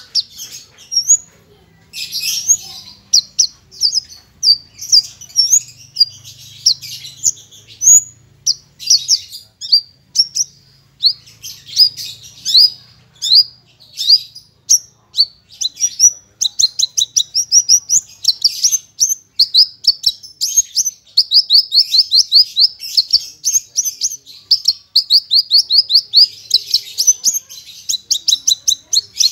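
Horsfield's bush lark (branjangan, parva race) singing continuously: a rapid, varied stream of high chirps and trills packed with mimicked phrases. About halfway through, the song turns to fast runs of repeated sharp notes, several a second.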